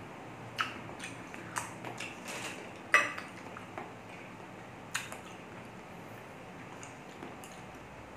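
A metal spoon clinks against a ceramic plate as it is set down about three seconds in, ringing briefly. Between it come a few soft clicks of chewing.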